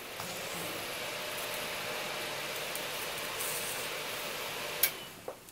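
Test PC powering up with an MSI GTX 760 graphics card fitted: fans run with a steady whir and hiss. About five seconds in there is a single sharp pop, and the fans cut out and wind down, a sign of the card shorting out and killing the power.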